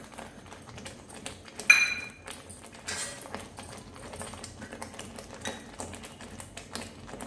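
Thick spinach, onion and tomato paste frying and bubbling in a kadhai, giving irregular small pops and spluttering clicks. A bit under two seconds in comes one short ringing clink.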